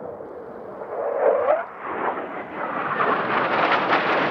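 Jet noise from an F/A-18C Hornet's twin General Electric F404 turbofans in flight. The sound grows louder and brighter, turning crackly from about three seconds in.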